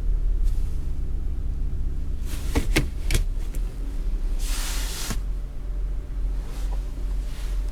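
Gearshift lever of a 2007 Lexus ES350 clicking several times as it is moved in the shift gate, about two and a half to three seconds in and again near five seconds, over a steady low rumble of the 3.5-litre V6 idling, heard inside the cabin. A short hiss comes between the clicks, about four and a half seconds in.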